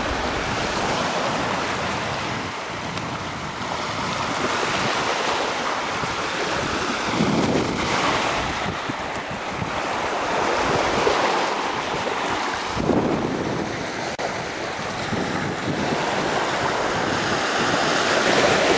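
Lake Michigan waves washing onto the shore, with wind blowing across the microphone.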